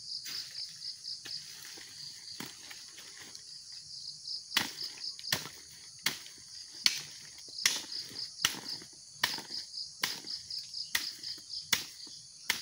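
Oil palm fresh fruit bunch being beaten by hand against the fruit heap, a sharp thud a little faster than once a second from about four seconds in, knocking the loose fruitlets free. Through it an insect chirps in a fast, steady pulsing trill.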